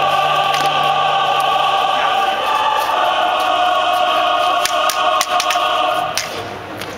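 Choir singing long held chords over orchestral music, with sharp clacks of prop lightsaber blades striking each other, mostly in the second half.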